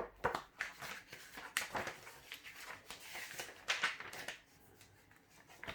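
Paper rustling and page flicks as a LEGO instruction booklet is handled and opened, in short irregular rustles that thin out near the end.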